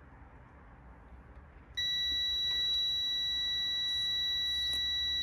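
Digital multimeter's continuity beeper comes on about two seconds in and holds a steady high beep. It shows a closed circuit through the oil pressure switch under test. Faint handling clicks of the leads and switch.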